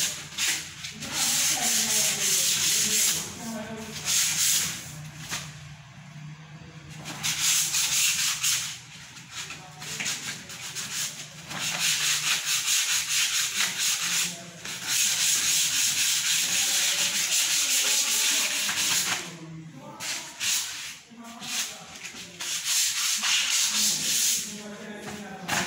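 Sandpaper rubbing on a wooden window-casing moulding, stroking in stretches of several seconds with short pauses between them, as the wood is sanded for paint.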